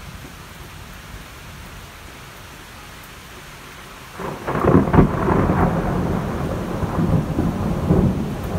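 Heavy rain falling steadily. About four seconds in, a loud thunderclap breaks in with a few sharp cracks, then a long rumble with another swell near the end.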